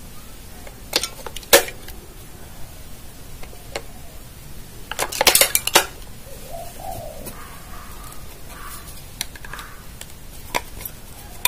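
AA batteries being pressed into the plastic battery compartment of a digital blood pressure monitor: sharp clicks and clacks against the spring contacts. There are single clicks early, a quick cluster about five seconds in, and another click near the end.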